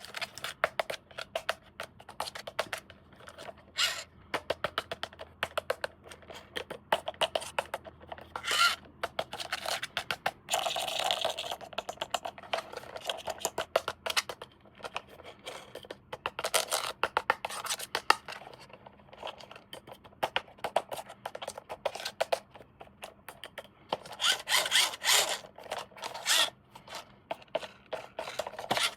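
Toy packaging being handled and opened by hand: a rapid run of clicks and scrapes of plastic and cardboard, with a longer scraping stretch about eleven seconds in and more bursts near the end.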